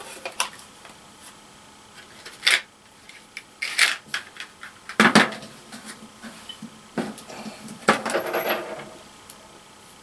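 Screws and a cordless drill handled on a plywood floor: scattered metal clinks and wooden knocks, a louder clunk about five seconds in and a stretch of scraping and rustling around eight seconds.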